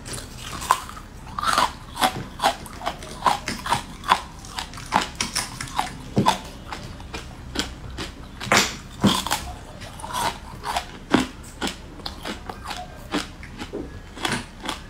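Someone biting into and chewing frozen green sweet ice, making an irregular run of crisp crunches, several a second.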